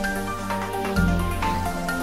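Background music: a melody of short notes over a deep bass line, with the bass changing note about halfway through.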